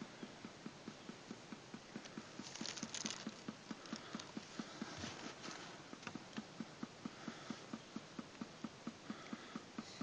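Birch sap dripping steadily from a metal tap spout into a plastic bottle: a regular patter of drops, about four a second. A brief rustle comes about two and a half seconds in.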